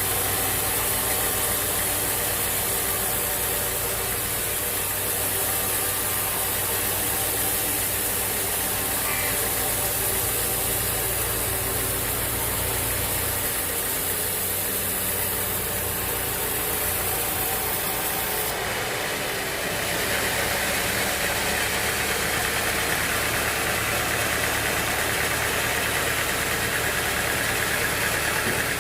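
Sawmill machinery's engine running steadily. About two-thirds of the way through the sound shifts: the deep hum drops away and a higher hiss comes up.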